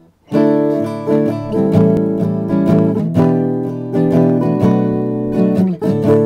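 Acoustic guitar being played, a run of picked and strummed chords starting about a third of a second in. The playing breaks briefly just before the end and then goes on.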